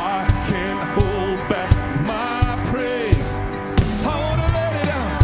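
Live worship band playing a pop-rock song: voices singing a melody over drum kit, guitars and keyboard, with a steady drum beat about every two-thirds of a second.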